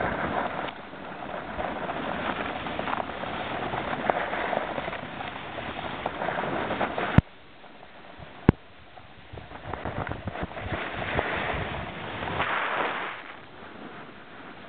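Wind rushing over the microphone and snow hissing under a snowboard during a fast descent, rising and falling in gusts. About halfway through, two sharp clicks a little over a second apart bracket a brief quieter stretch.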